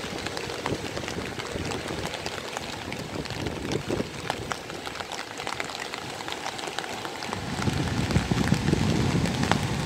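Steady rain falling, with many scattered drop ticks. About seven and a half seconds in, a louder, gusty low rumble sets in.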